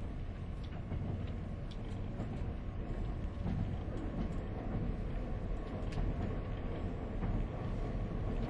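JR 189 series electric multiple unit running at modest speed: a steady low rumble of wheels on rail and running gear, with scattered light clicks.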